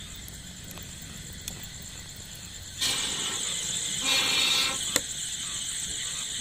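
Air blown through a long pipe into a wood cooking fire: a breathy rushing hiss that starts suddenly about three seconds in and is loudest for half a second near the middle. Before it, only faint crackles from the burning wood.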